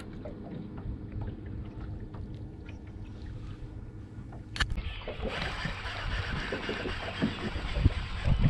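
Water lapping against a boat hull under a steady low rumble. A single sharp click comes about four and a half seconds in, and just after it a brighter, even hiss sets in.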